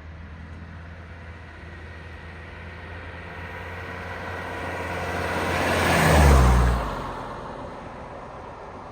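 1983 Mercedes-Benz 300CD's 3.0-liter turbodiesel inline-five driving past. It grows louder to a peak about six seconds in, its note dropping in pitch as it passes, then fades away.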